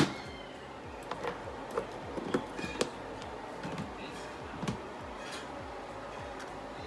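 Kitchen handling noises: a sharp knock right at the start, then scattered light clicks and taps as food containers are put into a refrigerator and a wooden cupboard is opened.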